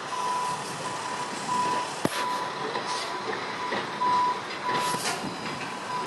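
Vehicle backup alarm beeping, a single high tone repeating about every half second to a second, over steady outdoor background noise. There is a sharp knock about two seconds in.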